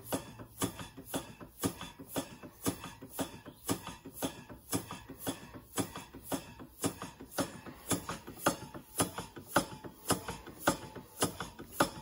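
Single-cylinder vertical model steam engine, a Stevens Model Dockyard type, running on compressed air and puffing its exhaust in a steady rhythm of about two strong beats a second, with weaker ones between. It wheezes and leaks air as it runs.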